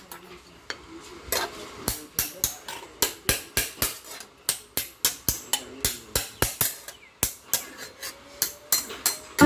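Hammer striking sheet metal in a steady series of sharp blows, about three a second, as in panel beating on a car body.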